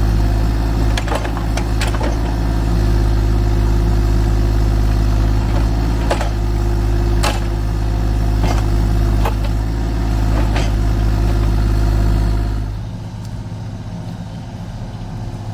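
Kubota U35-4 mini excavator's diesel engine running steadily, with a series of short metallic clanks and knocks from the digging gear. Near the end the engine drops to a quieter, lower-revving hum.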